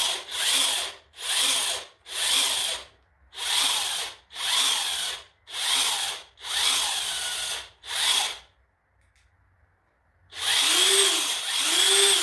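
DeWalt DCF900 cordless high-torque impact wrench running free with no load, in a string of short trigger pulls each under a second long. After a pause of about two seconds come two longer runs near the end, the motor's pitch rising as it spins up and falling as it winds down.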